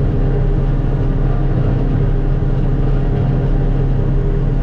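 Large engine of farm machinery running steadily at a constant speed.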